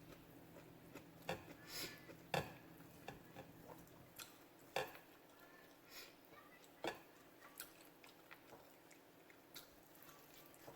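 Faint, irregular chewing and biting sounds of someone eating grilled chicken, soft wet mouth smacks with a few sharper clicks between them.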